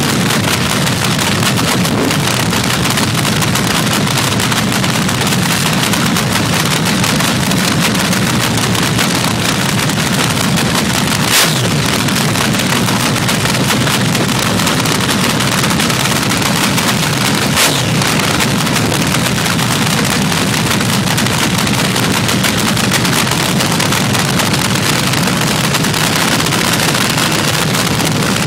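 Supercharged nitromethane-burning fuel altered (AA/FA) drag racing engine idling loud and steady, with two sharp pops about six seconds apart partway through.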